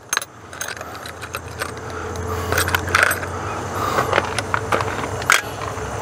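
Small metal parts of a new RV compartment-door thumb lock and its spare hardware clinking and jingling as they are handled, a series of separate sharp clinks.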